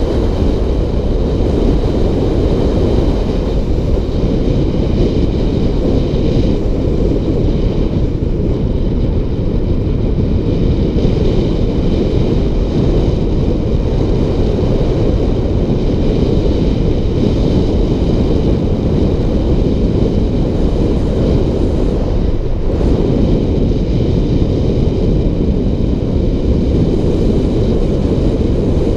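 Wind buffeting the microphone at speed on a downhill ride: a loud, steady low rumble, with a fainter steady whine above it.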